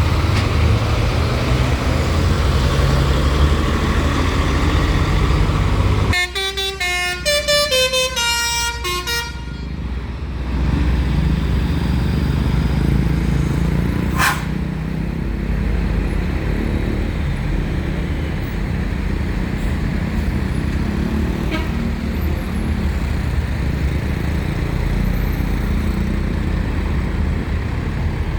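Heavy vehicle engines rumbling steadily at low pitch. About six seconds in, a multi-note musical vehicle horn plays a short tune of stepped notes for roughly three seconds, then the engine rumble resumes.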